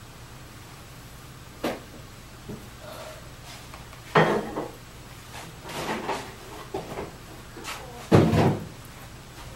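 Scattered knocks and thumps in a room, a loud one about four seconds in and the loudest near the end, over a steady low hum.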